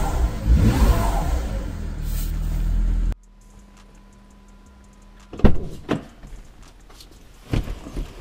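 BMW N54 twin-turbo inline-six revved in quick blips in Park, the revs rising and falling, until it stops abruptly about three seconds in. A few sharp knocks and thumps follow, the loudest about halfway through, as someone climbs into the driver's seat.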